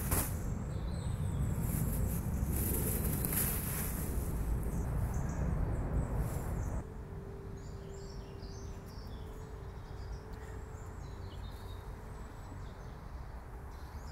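Woodland ambience, first with a low noisy rumble and the rustle of a black plastic bin bag as a coiled rope is pulled out of it. About seven seconds in, the sound drops abruptly to quieter woodland air with a faint steady hum and scattered bird chirps.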